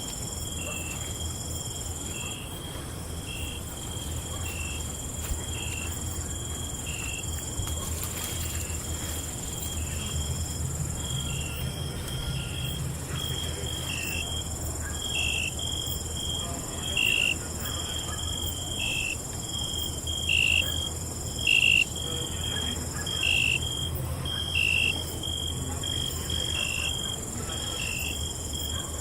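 Night chorus of crickets and other insects: steady high-pitched trilling, with a short chirp repeating about once a second that grows louder in the second half. A low steady rumble sits underneath.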